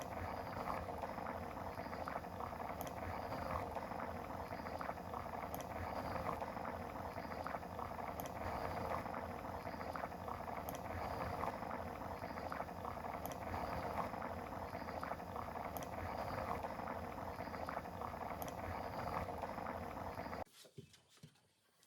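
A steady watery bubbling noise, like liquid at the boil, that cuts off suddenly near the end.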